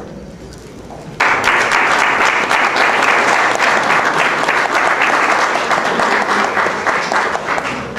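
Audience applauding: dense clapping breaks out suddenly about a second in and goes on steadily.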